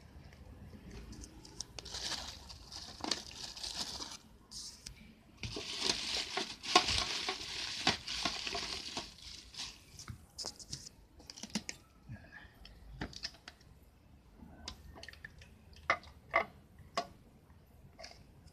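Clear plastic packaging crinkling as it is handled and pulled off a boxed action camera, loudest in the middle. It is followed by a few sharp clicks and taps from the cardboard box being opened near the end.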